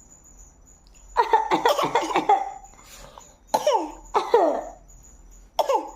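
Put-on, acted coughing in a high voice. A run of quick coughs comes about a second in, followed by three single coughs spaced about a second apart.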